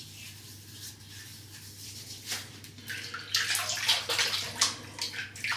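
Water splashing at a bathroom sink as hands work in it: faint at first, then a run of irregular splashes and drips from about two seconds in.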